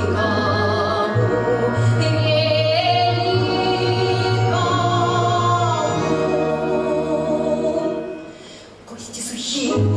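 A woman's voice singing long held notes in a Russian patriotic song, with orchestral accompaniment and a steady low bass underneath. The music dips quieter about eight seconds in, then swells again.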